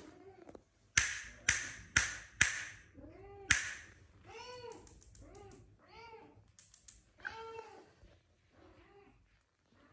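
Five sharp snaps about a second apart, then a white Persian kitten mewing over and over in short rising-and-falling cries.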